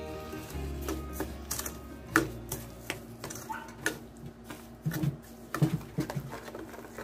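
A plastic spoon stirring thick apple pulp and sugar in a stainless steel pan, with irregular scrapes and sharp knocks where the spoon hits the pan's side and base. Background music fades out in the first two seconds.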